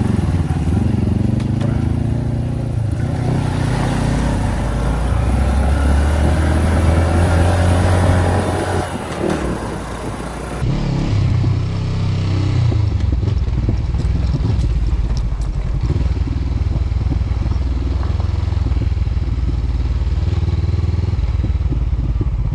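Honda CB500X parallel-twin motorcycle engine under way, its pitch rising for several seconds as it accelerates, easing off about nine seconds in, then running on steadily, with a few light knocks.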